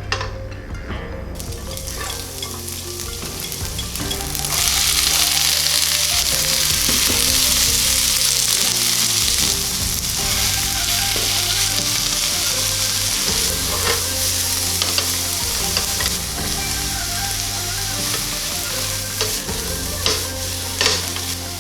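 Eggplant in sauce sizzling in a hot frying pan, the sizzle jumping much louder about four and a half seconds in and staying loud, with a few sharp clicks of a utensil against the pan near the end.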